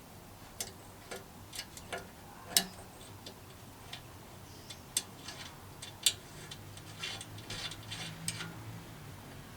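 Irregular sharp clicks and taps of hard objects being handled, the loudest about two and a half seconds in, with a quicker cluster near the end over a faint low hum.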